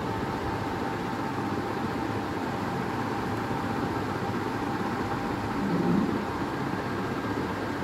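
Steady background hum over a noise haze, with a few faint steady whine tones and a brief louder low swell about six seconds in.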